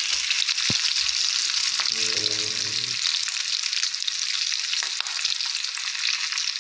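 Pork slices frying in oil on a ridged grill pan: a steady, crackling sizzle, with a few sharp clicks.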